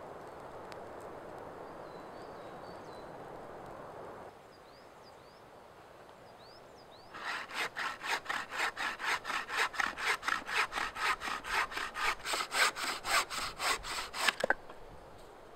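Homemade wooden frame saw cutting through a branch in quick, even back-and-forth strokes, about three or four a second. It starts about halfway through and stops suddenly about a second before the end.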